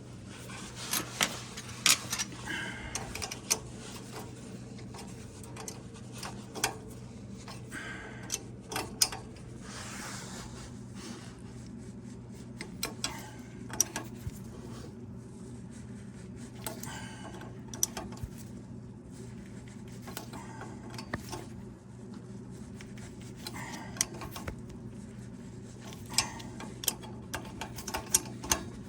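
Hand tools clicking and tapping on metal fittings at irregular intervals while a gas boiler's thermocouple is being worked on, over a steady low hum.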